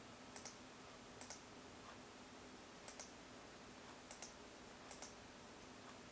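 Faint, sharp clicks coming in close doubles, five pairs at irregular intervals, as letters are entered one by one on the RA800 audiometer's on-screen keyboard. A faint steady hum lies underneath.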